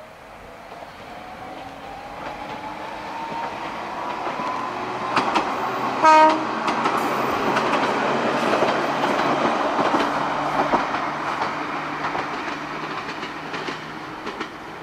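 Ichibata Electric Railway electric train passing: a whine rises steadily in pitch as it gathers speed, a short horn blast about six seconds in is the loudest moment, then the rumble and clickety-clack of wheels on the rail joints, fading toward the end.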